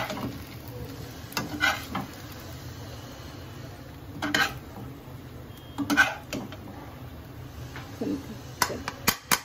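A metal spatula clinking and scraping against a wok and a plate as stir-fried noodles are lifted out and served, in a handful of separate clatters a second or two apart.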